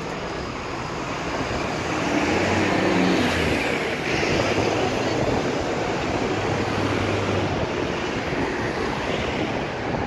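Busy road traffic passing close by: cars, taxis and double-decker buses driving past, with a steady low engine hum under the tyre and road noise, louder from about two seconds in.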